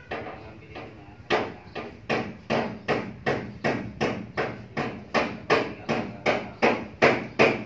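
Steady hammering in a workshop: evenly spaced sharp blows, about two and a half a second, starting a little over a second in.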